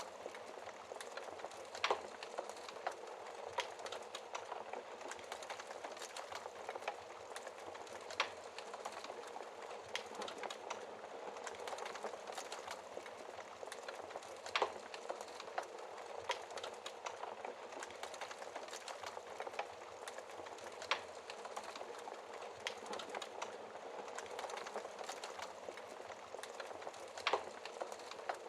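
Wood fire burning in a fireplace: a steady crackle and hiss with constant small snaps and, every several seconds, a louder sharp pop.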